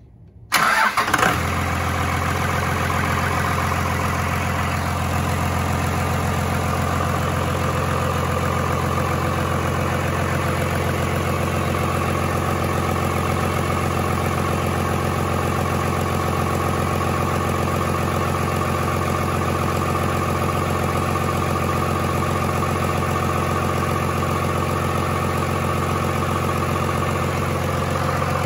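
Cummins 6BT 12-valve inline-six turbodiesel starting about half a second in, catching at once with a brief louder burst, then settling into a steady idle. It started right up with no issues.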